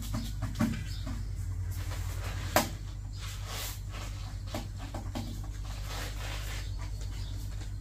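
Scattered light clicks and knocks with one sharp click about two and a half seconds in, over a steady low hum.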